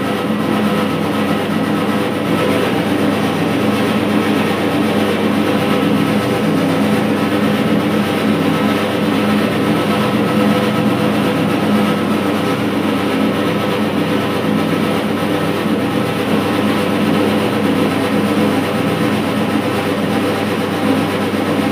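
A 10 kg dough kneader running steadily, its motor and drive giving a loud, even drone while the mixing shaft turns through the flour.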